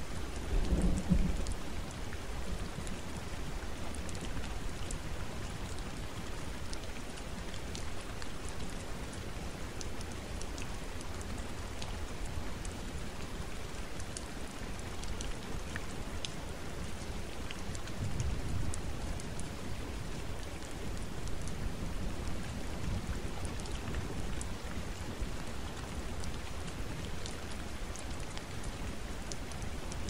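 Steady rain falling, with scattered individual drops ticking. Low rumbles of distant thunder swell near the start and again past the middle.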